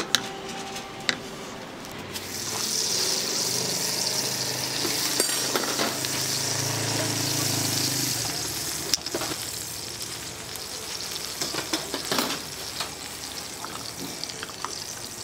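Steady sizzling hiss from the hot cooking trays of a street-food stall, loudest from about two to eight seconds in, with a low steady hum beneath it. Utensils and bowls give sharp clicks and knocks now and then, the clearest about nine and twelve seconds in.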